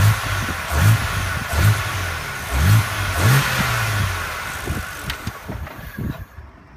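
BMW E86 Z4 engine heard in the engine bay, blipped about five times in quick succession, each a short rise in revs that falls back. It then holds briefly and fades away over the last couple of seconds.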